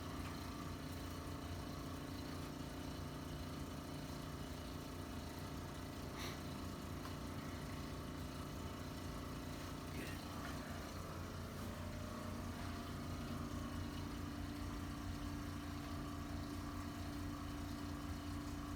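Steady low machine hum with several constant tones; a higher steady tone joins a little past the middle, and there are a couple of faint clicks.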